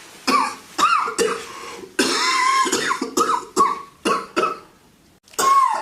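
A man coughing hard in a long fit, about a dozen coughs in quick runs with short pauses between them. He is sick with a fever and a bad cough.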